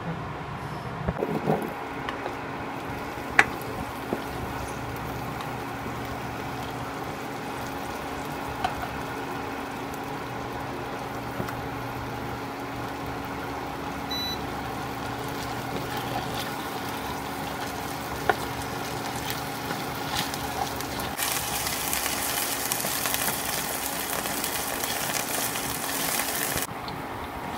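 Potato chunks frying in oil in a non-stick pan: a steady sizzle over a steady hum from the induction cooktop, with a few sharp taps. About three-quarters of the way through the sizzle turns much louder and harsher as the potatoes are stirred with a spatula, then drops back near the end.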